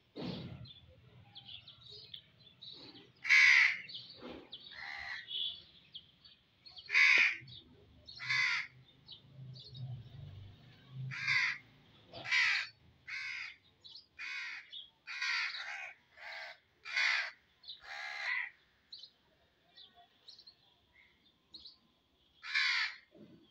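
House crows cawing: a long series of harsh caws, several coming in quick runs in the middle, then a quieter spell and one last caw near the end.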